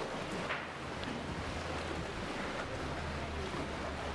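Sea waves washing in a sea cave around a small boat, with a low steady hum underneath.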